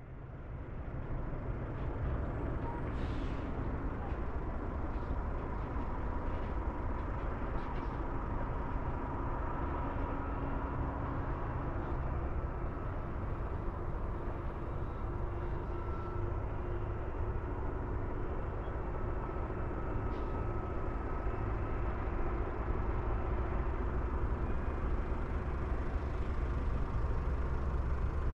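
Distant road traffic, mostly trucks, on the highway below: a steady low rumble and hiss with a faint engine hum.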